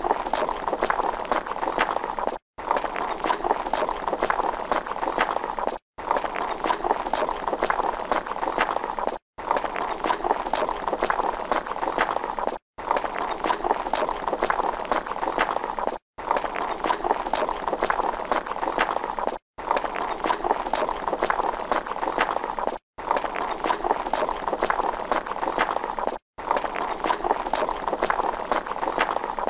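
Galloping horse hoofbeats: a fast, dense drumming of hooves. The same stretch of a few seconds repeats as a loop, broken by a brief silent gap about every three and a half seconds.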